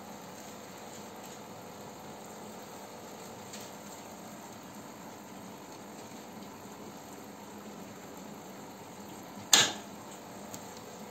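Steady hiss and bubbling of aquarium aeration, broken about nine and a half seconds in by one short, loud splash as a redtail catfish lunges up at the surface for a feeder fish.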